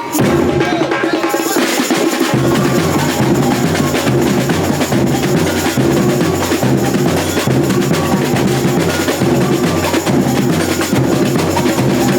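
Music with a steady drum beat and bass; the bass and drums come in about two seconds in.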